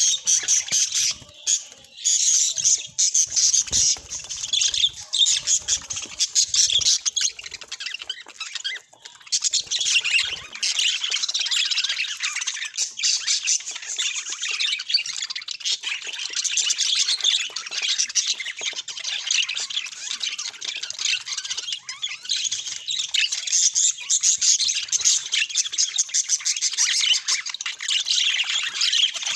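Budgerigars chattering and warbling in a continuous stream of quick, high-pitched chirps, with a brief lull about nine seconds in.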